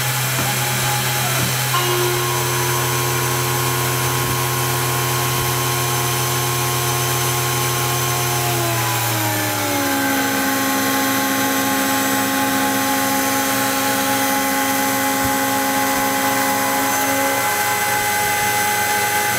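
ProLight CNC mill running as its end mill cuts a block of machining wax, with a steady motor whine over a hiss. About nine seconds in, the whine slides down in pitch and settles lower.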